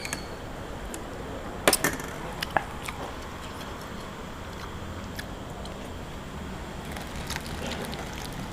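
Eating sounds: a few sharp clicks and cracks, loudest in a cluster about two seconds in, over a low steady background.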